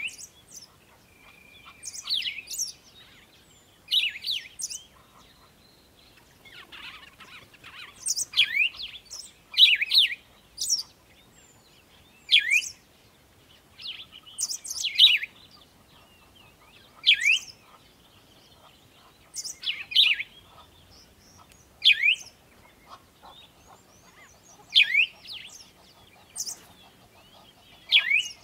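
Birds chirping: short downward-sweeping call notes repeat roughly every two seconds, with fainter, higher notes in between.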